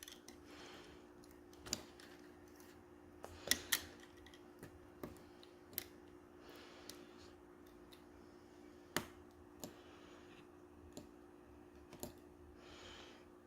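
Faint, irregular small clicks and taps from handling a smartphone's internal parts while the screen's ribbon connector is pressed into place, over a faint steady hum.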